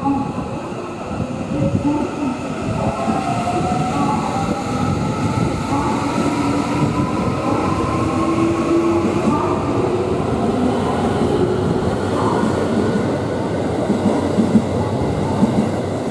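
JR West 207 series electric commuter train pulling out of a station. Its traction motors whine, rising in pitch as it picks up speed, over the steady rumble of the wheels.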